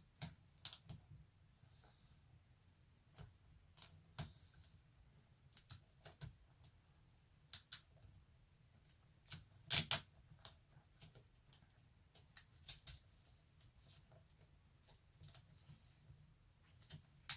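Scattered small clicks and taps of hands handling a laptop's LCD panel and lid, at irregular spacing, with one louder knock about ten seconds in.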